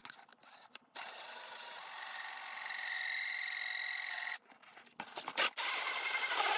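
A 5-inch hole saw on a drill cutting through a plastic console tray: a steady rasping grind with a faint whine in it for about three and a half seconds, then a few light plastic clicks and a shorter rasp near the end.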